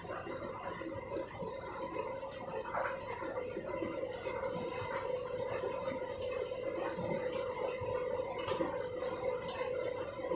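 Candy front-loading washing machine running a rinse-and-spin cycle, its drum turning slowly: a steady motor hum with water gurgling and sloshing around the tumbling clothes.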